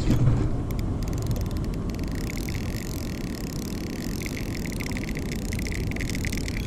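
Fishing reel's drag clicking in a fast, even run from about two seconds in as a big fish pulls line off against light line, over a steady low rumble.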